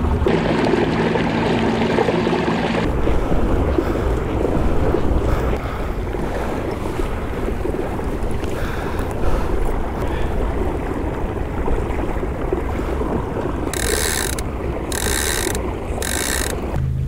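Wind buffeting the microphone and water rushing along a moving kayak's hull. Four short hissing bursts come near the end.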